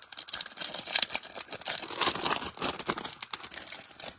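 Crinkling and tearing of foil trading-card pack wrappers being opened, a dense, irregular crackle.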